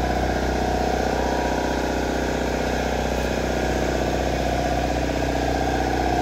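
Steady mechanical drone of a running shop machine: a low hum with a wavering, buzzing tone above it, holding at an even level.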